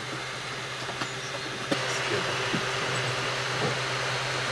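3D printer running: its stepper motors and cooling fans give a steady hum with a hiss over it, growing louder about two seconds in, with a few faint clicks.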